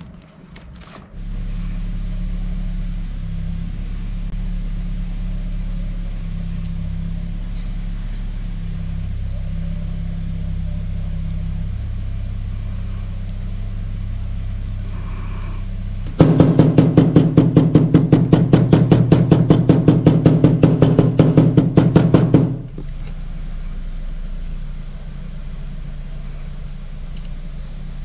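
A motor running with a steady low hum. In the second half a louder stretch of rapid, even pulsing lasts about six seconds, then the steady hum returns.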